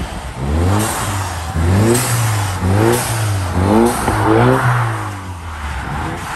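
Ford EcoBoost car's engine revving in repeated surges, its pitch rising and falling about once a second over a steady low drone.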